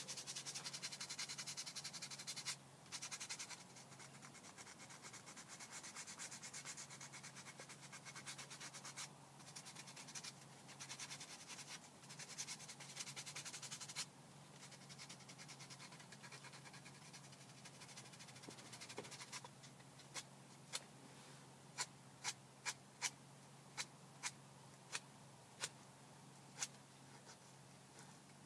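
Sandpaper rasping on a wood carving in long bouts of quick strokes, with short pauses, stopping about halfway through. In the second half come about ten sharp clicks, spaced under a second apart.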